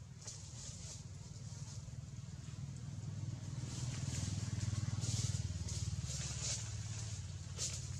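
Engine of a passing motor vehicle: a low hum that grows louder to a peak about five seconds in and then fades, with soft intermittent rustling hiss over it.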